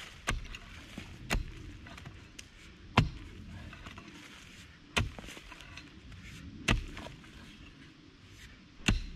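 Mattock chopping into forest dirt, six strikes spaced a second and a half to two seconds apart, the loudest about three seconds in.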